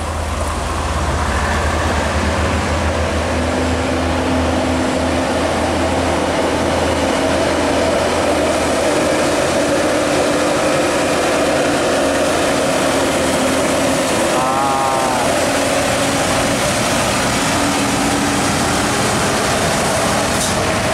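Heavy diesel trucks passing close on a winding road, engines running under load with steady tyre and road noise, including a red Isuzu Giga FVM 240 cargo truck working through a sharp bend. A short wavering tone comes about two-thirds of the way in.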